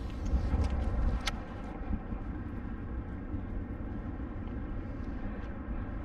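Freight train rumbling steadily across a railroad trestle bridge. A single sharp click comes a little over a second in.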